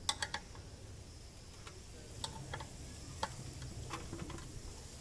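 Light, sharp clicks and taps of tools or small parts being handled while a water heater fitting is worked on: a quick cluster at the start, then single clicks every half second to a second.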